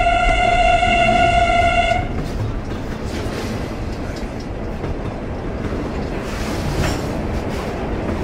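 Train horn blowing one steady tone that cuts off about two seconds in, then the steady rumble of the train running across a truss bridge.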